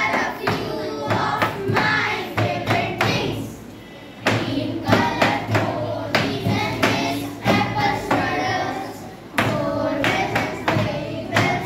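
Children singing a rhyme together in chorus, with taps and thumps on a wooden desk along with the singing.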